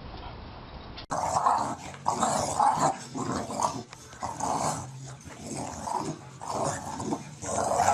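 A dog growling in a run of short, rough, irregular bursts, starting abruptly about a second in.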